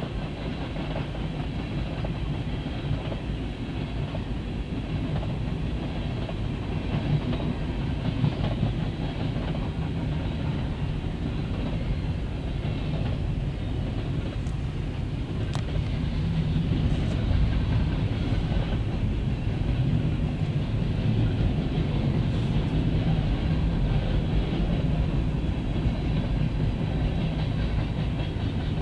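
Freight train cars rolling past, a steady rumble of steel wheels on rail with a few faint clanks, growing a little louder about halfway through.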